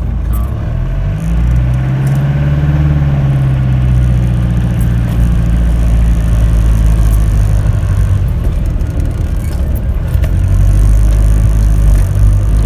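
Motorhome engine running while driving, its note rising about a second in as it picks up speed, then holding steady.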